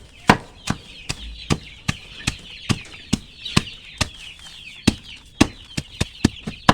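Lemongrass stalks being chopped with a blade: sharp, even chops about two to three a second, with a little speed-up near the end. Under them a flock of young village chickens clucks steadily.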